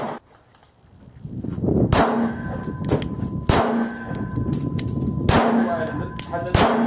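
Smith & Wesson M&P 9 Shield 9mm pistol fired about five times at an irregular pace, each shot followed by a ringing clang from steel plate targets.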